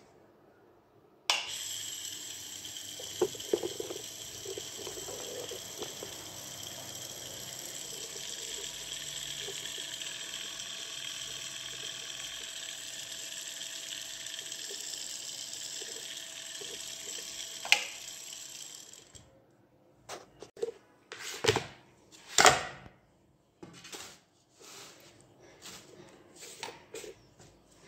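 A 24 V DC reverse-osmosis pump motor with a 3D-printed sanding disc on its shaft starts about a second in and spins freely with a steady whir, then cuts off suddenly past the middle. A few loud knocks and clatters follow as a wooden board is handled.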